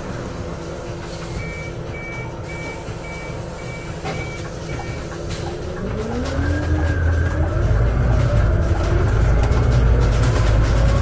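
Scania Citywide CNG city bus standing with its engine idling while a run of about eight short, high beeps sounds, about two a second. About six seconds in, the bus pulls away: the engine and drivetrain get louder and their whine rises in pitch, dipping once as it shifts up before climbing again.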